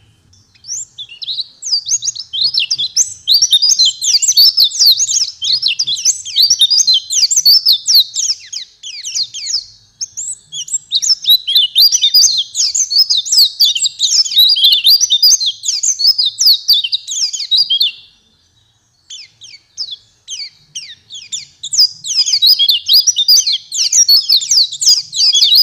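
Pleci (white-eye, Zosterops) singing a fast, high-pitched twittering song of rapid-fire notes in long unbroken runs. The song breaks off briefly about ten seconds in and again for about a second later on before starting up once more.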